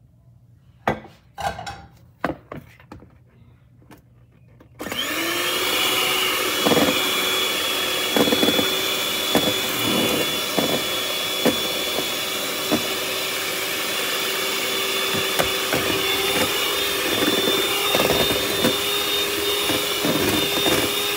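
A few sharp knocks, then an electric hand mixer switches on about five seconds in. It runs at one steady speed with a constant whine as its beaters churn thin cake batter in a plastic bowl, with occasional knocks along the way.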